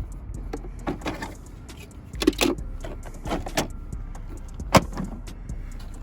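Pieces of a car's plastic center console being handled and fitted together: scattered clicks and knocks, the sharpest a little under five seconds in.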